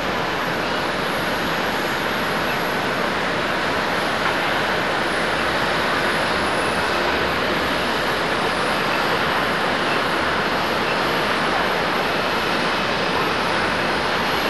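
Jet noise from a Boeing 737-700's CFM56 engines on final approach to landing: a steady rushing sound that grows a little louder toward the end.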